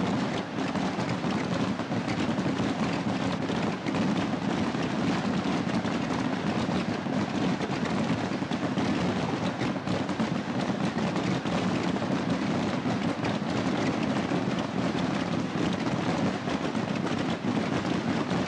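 A mass barrage of voladores, traditional stick rockets, going off continuously: an unbroken crackle of countless overlapping bangs with no gaps, heaviest in the low range.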